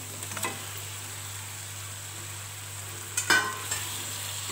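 Onion-tomato masala sizzling steadily in a non-stick pan as fried chicken pieces go in, with a short knock at about half a second and a loud clatter of the wooden spatula against the pan a little past three seconds in.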